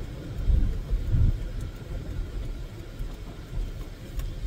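Low rumble of a car driving, heard from inside the cabin, swelling twice in the first second and a half.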